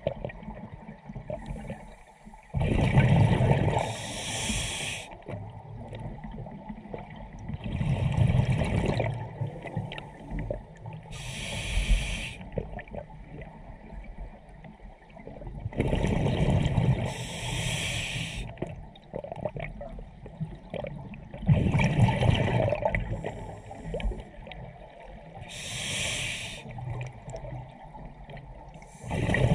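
Scuba diver breathing through a regulator underwater: a hiss with each breath and a rumbling gurgle of exhaled bubbles, repeating about every four to five seconds.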